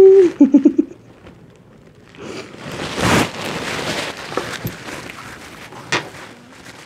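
A woman's short hum breaks into a quick chuckle right at the start. Then comes about two seconds of crisp crunching as she bites into and chews a raw apple.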